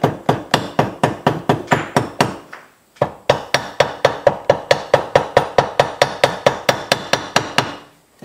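A hammer tapping rapidly on gasket material held against a metal air compressor part, cutting the gasket out along the part's edge. The strikes come about five a second, with a short pause about two and a half seconds in, then run on and stop shortly before the end.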